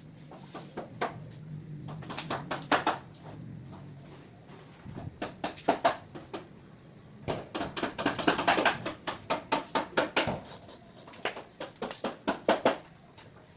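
Irregular runs of quick clicks and taps from hands and tools working on a sofa frame and its upholstery. They come in bursts and are thickest in the second half.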